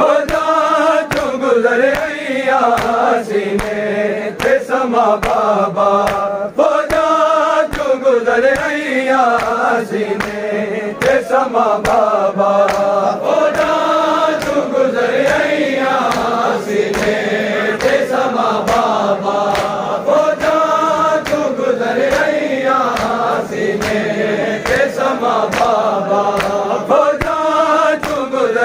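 Men chanting a noha, an Urdu/Punjabi mourning lament, in unison over a steady beat of hand slaps on bare chests (matam).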